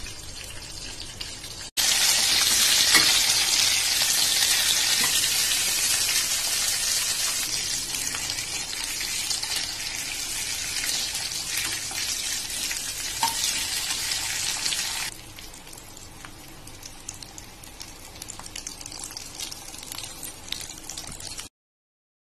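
Stuffed capsicums frying in oil in a kadhai: a steady sizzle, soft at first, much louder from about two seconds in, then dropping back to a softer sizzle about two-thirds of the way through, with a few light clicks.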